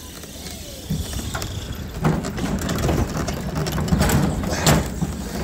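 Pedal-powered monorail car running along its steel rail: the pedal drive and wheels rattle and click continuously, with a few sharper clacks about two and four seconds in.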